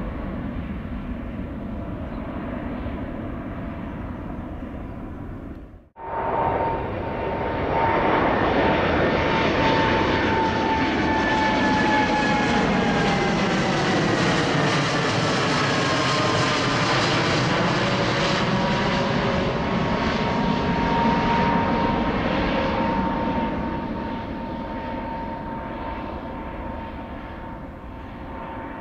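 Jet engine noise of a departing Airbus A350-1000 (Rolls-Royce Trent XWB) climbing away. After a sudden cut, a Boeing 787-8 on its climb-out passes overhead, louder, with a steady whine and tones that sweep down and back up as it goes over, then it fades as the jet climbs away.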